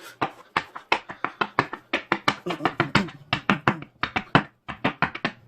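Deck of tarot cards being shuffled by hand, a rapid, uneven run of sharp card slaps and clicks, several a second.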